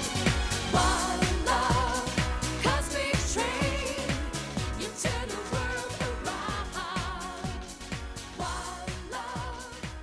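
Late-1990s dance-pop song by a female vocal group: women singing over a steady kick-drum beat, the whole mix fading out gradually.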